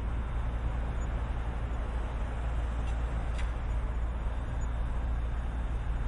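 Jackhammer running steadily, a continuous dense hammering with a heavy low rumble, with a couple of faint clinks about halfway through.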